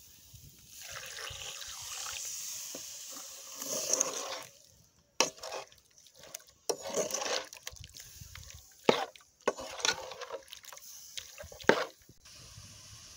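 Water poured into a pot of spiced pork pieces, trickling for a few seconds. Then a metal ladle stirs the meat, scraping the aluminium pot, with several sharp clinks of the ladle against the pot.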